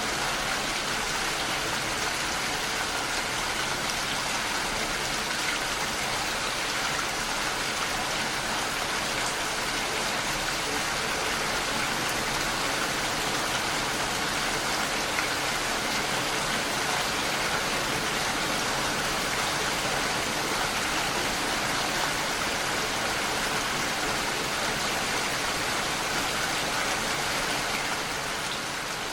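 Heavy rain falling steadily on a window: a dense, even patter of drops, slightly quieter for a moment near the end.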